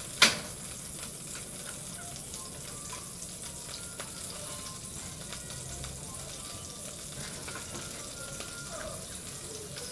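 Butter and a little oil sizzling in a small frying pan over low heat, a steady hiss with a few faint ticks. One sharp knock sounds just after the start.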